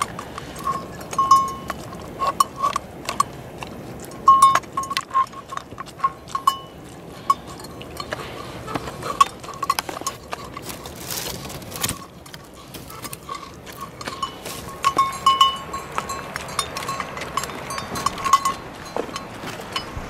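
A large dog eating from a metal dish: many small clicks and knocks of chewing and of its muzzle against the dish, with a bell clinking irregularly throughout.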